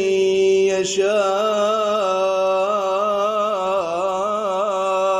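A man's voice reciting the Quran in melodic tajweed style, holding one long vowel across the whole stretch with ornamented, wavering turns of pitch.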